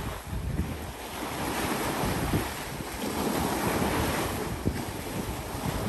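Sea waves washing up onto rocks and concrete steps at the shoreline, swelling and falling gently, with wind buffeting the microphone.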